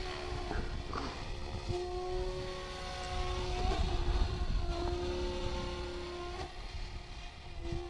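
Electric RC helicopter with a Scorpion motor flying fast passes: a whine from the motor and rotors made of held tones that shift in pitch several times, with a sweeping shimmer higher up as it passes.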